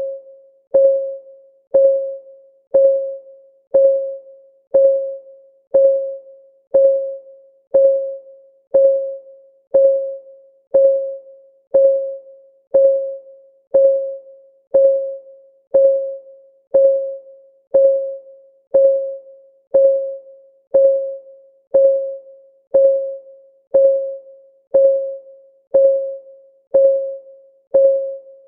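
Countdown timer's clock-ticking sound effect: a steady tick about once a second, each a short pitched tap that rings briefly and dies away.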